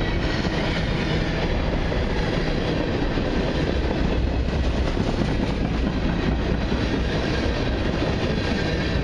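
Cars of a long mixed freight train rolling steadily past, their steel wheels running over the rails in a continuous rumble and clatter.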